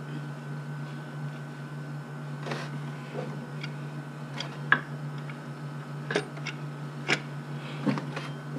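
Light, irregular clicks and knocks of hands and tools working the bolts of a car's water pump in the engine bay, about eight in all, the sharpest one a little before the middle. A steady low hum runs underneath.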